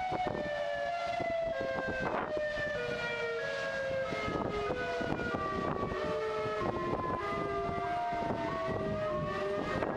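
Eerie soundtrack music: a slow, wavering melody of held notes that slide from one pitch to the next, over constant crackling clicks.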